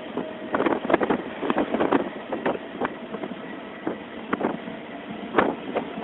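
DEMU train running along the track, heard through an open carriage window: a steady rush of noise with irregular sharp knocks from the wheels clattering over the rails.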